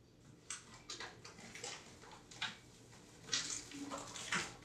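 Kitchen handling noises: a series of short rustles and light knocks, irregular and about once a second, with the loudest cluster a little over three seconds in, from someone off-camera fetching sugar.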